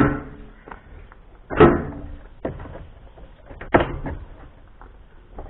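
Several sharp knocks and thuds as a motorcycle fuel tank is pressed and shifted back into place against its fairing panels. The loudest comes right at the start, with others about a second and a half in and near the four-second mark.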